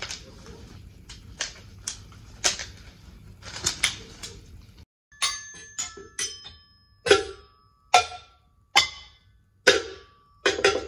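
Hard plastic rungs of an agility ladder clicking and clattering together as it is handled. Then sticks striking upturned plastic cups and bowls: separate sharp hits with a short ringing tone, about one a second, some in quick pairs.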